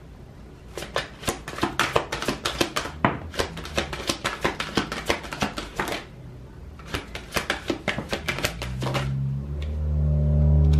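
Oracle cards being shuffled by hand: two runs of rapid, crisp riffling clicks. Near the end a low, steady drone with several tones swells up and stays loud.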